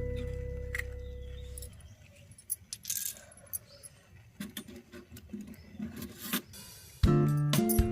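Light clinks and taps of miniature cooking utensils, scattered and irregular, in a gap in the background guitar music, which fades out in the first two seconds and comes back near the end.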